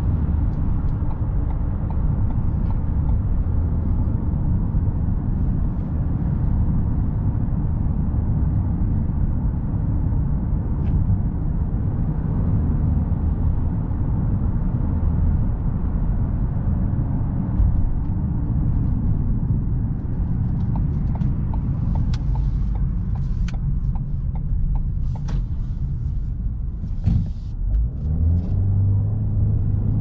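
Steady low engine and tyre rumble heard from inside the cabin of a 2019 Ford Kuga petrol SUV on the move. A scatter of sharp clicks and knocks comes in the last third, and a steadier low hum sets in near the end.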